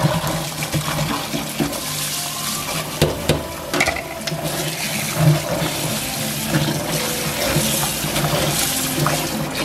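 Tap water running steadily into a steel bowl of vegetables, with hands swishing and rubbing them in the water and a few short knocks.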